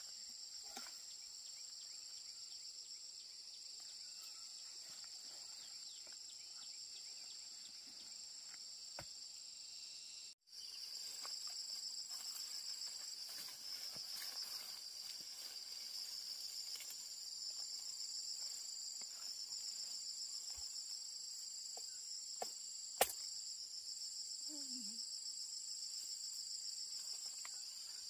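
Steady chorus of insects, a shrill high drone that pulses rapidly. It drops out for an instant about a third of the way in and comes back louder, with a few faint clicks and one sharp click later on.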